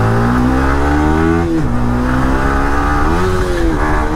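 Yamaha R15 V3 sports bike's single-cylinder engine revving hard under acceleration: the pitch climbs, drops sharply at an upshift about one and a half seconds in, climbs again, and rises and falls once more a little after three seconds.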